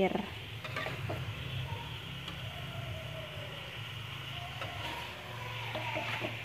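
Metal spatula scraping and stirring chicken pieces in spice paste in a wok, with a few scrapes about a second in and again near the end, over a steady low hum.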